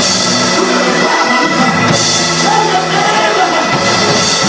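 Live church music: a band playing steadily, with some voices singing.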